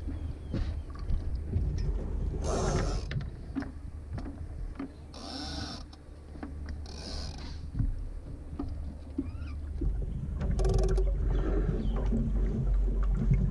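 Sounds aboard a Laser dinghy under sail: water hissing and splashing against the hull in about five short bursts, over a low wind rumble on the microphone, with small knocks and creaks from the boat's fittings.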